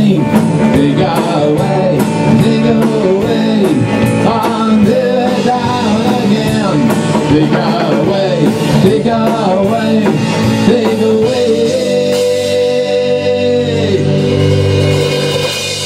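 Rock band playing live: electric guitars, bass and drum kit with a steady cymbal beat. About twelve seconds in, the beat stops and the band holds long ringing notes.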